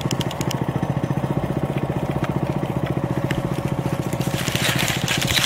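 A small go-kart engine idling with a steady, even pulse. Light clicks, and a burst of rustling near the end, come from the trail-camera lock being worked open.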